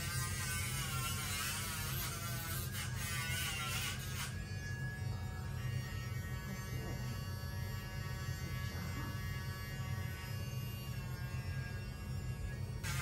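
Dremel rotary tool running steadily with a low buzz, grinding down a dog's toenails: a higher, wavering grinding sound over the first four seconds, then the tool runs freely off the nail until grinding starts again near the end.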